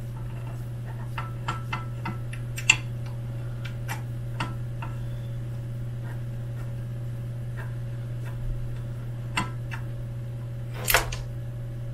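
Scattered small clicks and taps of metal hardware being handled and fitted to the aluminium extrusion frame of a Voron 2.4 3D printer, with a sharp click about two and a half seconds in and a louder rattling clatter near the end. A steady low hum runs underneath.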